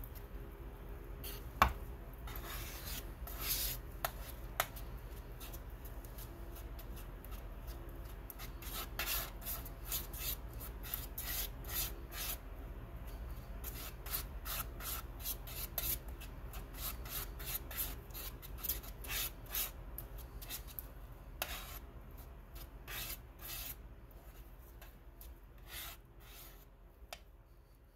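Steel palette knife scraping and spreading thick oil paint across a paint-grinding plate in a long run of short scrapes. A single sharp click about a second and a half in is the loudest sound.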